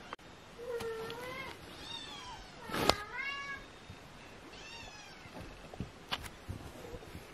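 Golden British shorthair kitten meowing: about four short, high meows, each rising then falling in pitch. A sharp click about three seconds in is the loudest moment, with a softer click about six seconds in.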